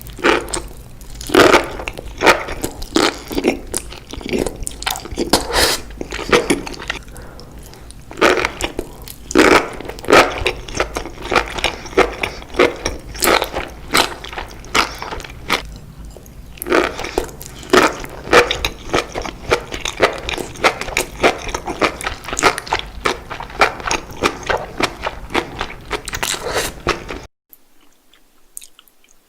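Close-miked chewing and biting of cooked enoki mushrooms: a dense, irregular run of crunchy, wet bites and chews. About 27 seconds in the sound drops suddenly to a much quieter stretch with only faint mouth sounds.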